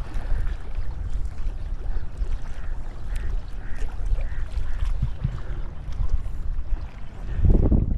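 Wind buffeting the microphone over sloshing sea water around a wader in the shallows, with a louder surge near the end.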